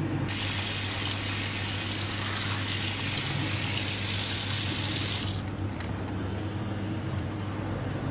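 Tap water pouring and splashing onto a film negative in a sink tray, rinsing it after bleaching. The water starts just after the start and is shut off suddenly about five seconds in, over a steady low hum.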